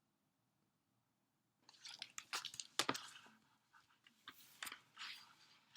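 Pages of a picture book being handled and turned: a run of crackling paper rustles and clicks, starting about two seconds in after near silence.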